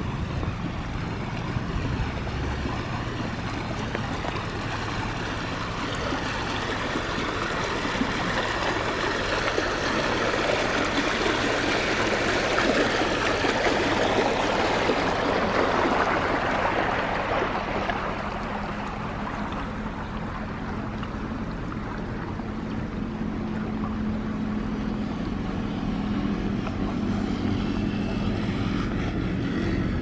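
Water rushing steadily along a narrow concrete-lined irrigation channel, a continuous splashing rush that swells louder around the middle. A faint low steady hum sits underneath, clearer in the second half.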